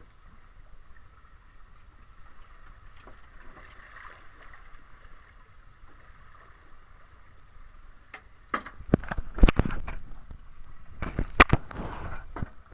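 Faint steady hiss of wind and sea on a boat. About two-thirds of the way in, a run of loud sharp knocks and clatter starts, with two strikes louder than the rest, as the angler handles the rod and reel while fighting a fish.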